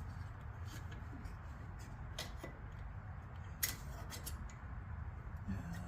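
Scattered small metallic clicks and taps from a tailshaft bushing puller tool being worked inside a 200-4R transmission's tail housing. A sharp click comes about two seconds in and the loudest just past the middle, over a low steady hum.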